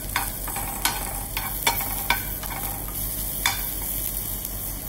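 Spinach stems, diced bacon and sliced garlic sizzling in a nonstick frying pan while a metal spoon stirs them, with the spoon clicking and scraping against the pan about seven times at uneven intervals.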